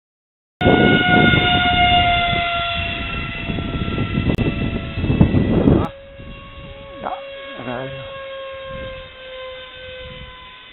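Whine of an RC Mirage 2000 model jet's double ducted propeller, two electric motors driving fans in series, in flight. The high pitched whine sags slightly as the jet passes, over heavy low rumble. About six seconds in it cuts to a fainter, steadier whine with brief voices.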